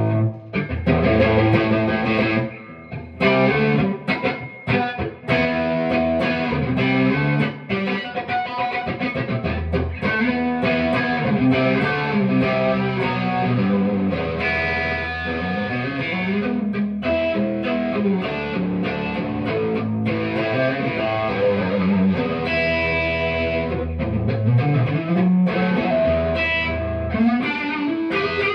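Electric guitar played through a Love Pedal overdrive into a Mesa Boogie Nomad tube amp and 2x12 cabinet, with a driven tone. The first few seconds are choppy chords with short stops, then comes an unbroken run of riffs with low sustained notes and string bends.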